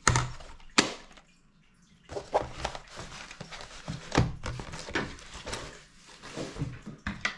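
Irregular clicks and knocks of a small magnetic precision screwdriver kit being handled, with bits and tools set back into their case, and a light rustle between the clicks.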